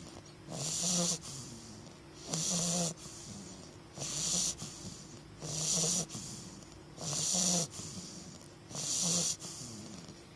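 English bulldog puppy snoring in its sleep: about six snores, one every second and a half or so, each with a low buzzing tone and a breathy hiss.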